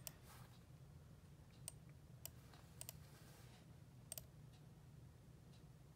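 A handful of faint, scattered clicks from a computer mouse as the Wi-Fi is switched off in the router's settings page, over a faint steady low hum.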